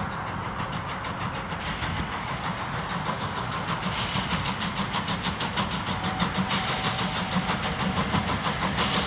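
Steam tank locomotive working a train, its exhaust chuffing in a quick, even rhythm that grows louder as it approaches.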